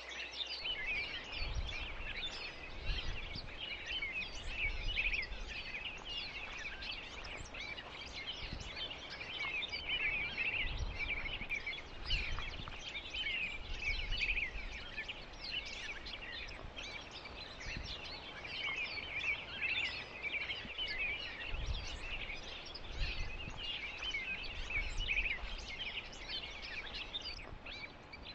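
Dense, continuous chirping of many small birds, high-pitched and irregular, with faint low bumps now and then.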